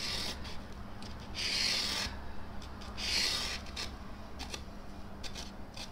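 Pencil scratching rough marks along the edge of a paper template onto a polyurethane foam block: three longer scratchy strokes in the first three and a half seconds, then a few short light ticks.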